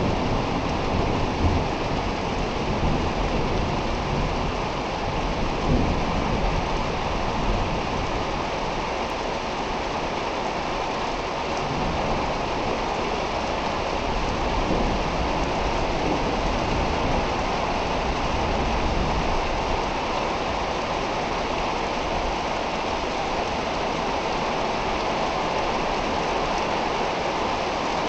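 Heavy downpour of a summer rain shower: a steady, dense hiss of rain falling, with a low rumble underneath in the first several seconds.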